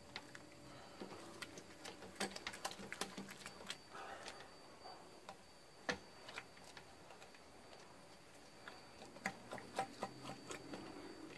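A mash paddle stirring grain into water in a stainless steel Grainfather, knocking and scraping irregularly against the steel vessel and its central pipe as dough balls are broken up. The knocks come in clusters, with one sharper knock about six seconds in.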